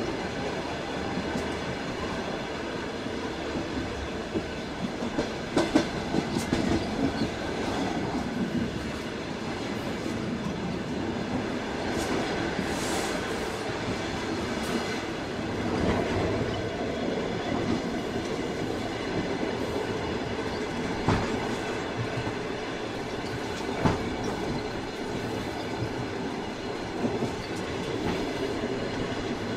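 Passenger train running along the track, a steady rumble with wheels clacking over rail joints. A cluster of sharper knocks comes about six seconds in, and single louder knocks come later.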